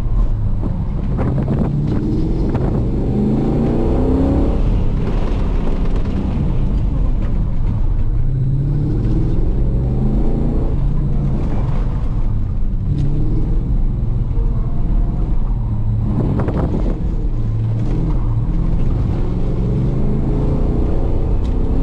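1994 Chevrolet Impala SS's LT1 V8, breathing through Tri-Y headers and a 2.5-inch catback exhaust, heard from inside the cabin during a hard autocross run. The engine revs up and eases off again and again through the tight sections.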